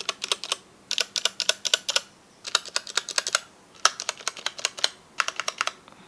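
Keys of a Qisan Magicforce Smart 49 40% mechanical keyboard with Gateron Brown tactile switches pressed by hand in short bursts of rapid clicks with brief pauses between, the stabilized keys included. The clicks are clean, with no ping, ring or stabilizer rattle.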